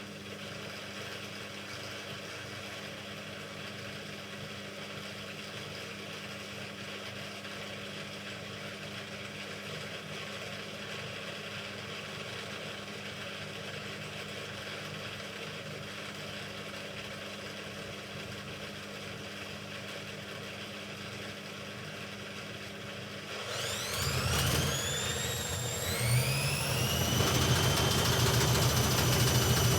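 Hoover Ecologic Computer washing machine: a steady low hum of the drain pump, which runs continuously on this faulty machine, then about 23 seconds in the motor starts and the drum winds up into a spin with a rising whine that falters briefly, climbs again and settles into a steady high spin whine near the end.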